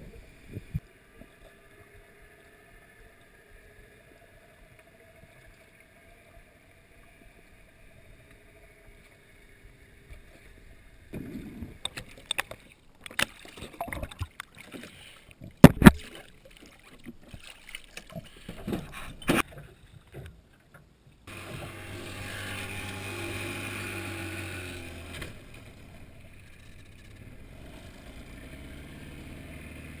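About ten seconds of quiet underwater, then splashing and sharp knocks against a metal boat hull as a swimmer surfaces and hauls himself aboard, the loudest knocks coming in the middle. About two-thirds of the way through, a boat motor starts running with a steady low hum and water noise as the boat gets under way.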